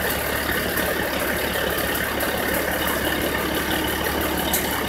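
Engine of the boat-hauling truck idling steadily, a constant low hum with no change in speed.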